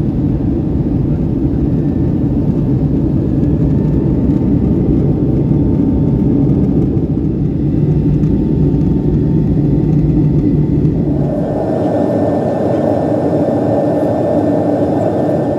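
Steady rumble of an airliner cabin in flight: jet engine and airflow noise heard from a window seat. About eleven seconds in, the sound shifts, the deepest rumble thinning and a higher rushing sound coming in.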